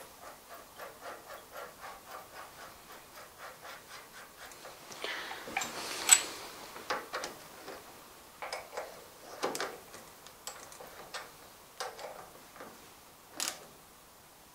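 Clamping nut being screwed by hand onto a Dumore 44 tool post grinder's spindle to hold the grinding wheel. There is a run of light, even ticks, about three a second, then scattered clicks and scrapes, with a sharper click about six seconds in.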